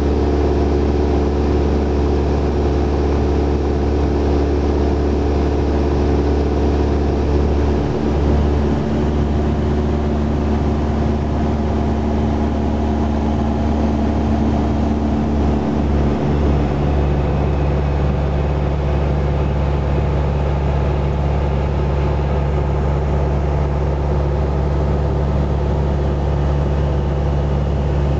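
Cessna 172 SP's four-cylinder Lycoming engine and propeller droning steadily in level cruise flight, heard inside the cabin; the tone of the hum changes slightly about halfway through.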